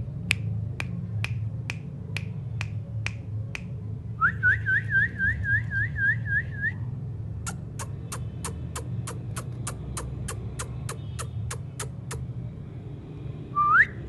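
Indian ringneck parakeets clicking and whistling. There are sharp clicks about twice a second, then a run of about ten quick rising chirps, then faster clicks about four a second, and one short loud whistle rising in pitch near the end.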